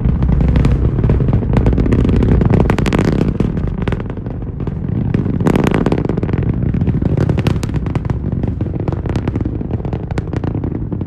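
Falcon 9 rocket's nine Merlin first-stage engines heard from miles away: a loud, deep, continuous rumble full of sharp crackling and popping.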